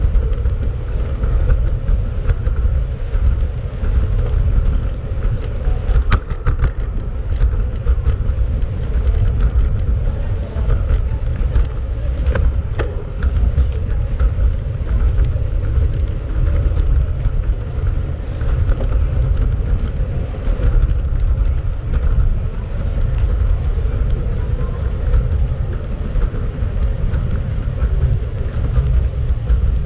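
Wind rumbling on the microphone of a camera riding along on a bicycle, over city street traffic, with scattered small clicks and knocks.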